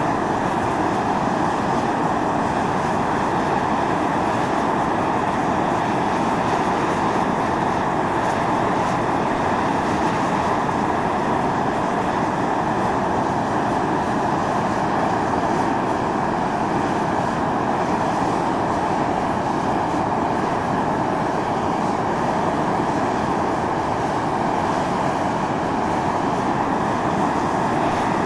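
Steam jetting steadily from a volcanic fumarole on Mt. Iō (Atosanupuri), a continuous rushing hiss that never lets up.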